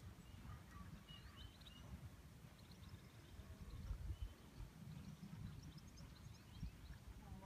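Near silence with a low rumble, and faint chirps of small birds singing here and there.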